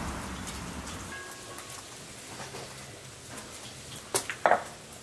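Potatoes and carrots sizzling as they fry in hot oil in a cauldron, with scattered small pops. Two sharp clicks come near the end.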